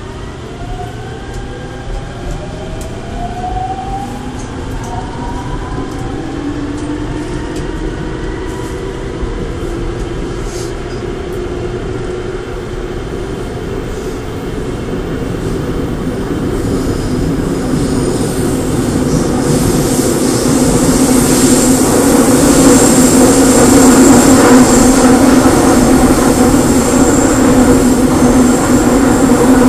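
Seoul Subway Line 5 5000-series train heard from inside the car: the traction motors whine up in several rising tones as the train gathers speed, then the car runs with a steady rumble that grows louder as it goes. A thin high squeal joins in about two-thirds of the way through.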